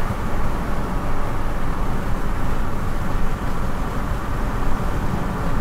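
Road traffic noise: cars driving past, a steady rumbling noise without pauses.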